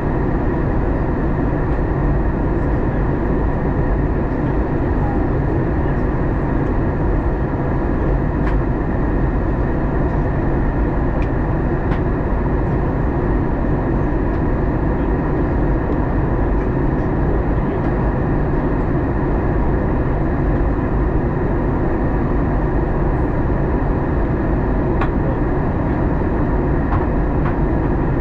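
Steady cabin noise inside an Airbus A321 airliner in flight: the drone of its jet engines and rushing airflow, with a few faint steady tones and occasional faint ticks.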